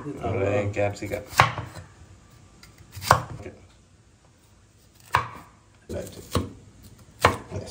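Kitchen knife chopping a green bell pepper on a wooden cutting board: about seven sharp, unevenly spaced strikes of the blade against the board.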